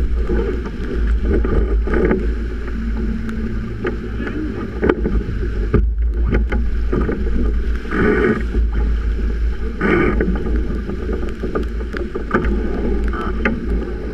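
Strong wind buffeting the microphone of a sailboat heeling in a gale, with waves rushing and splashing along the hull. A few louder surges come about eight and ten seconds in.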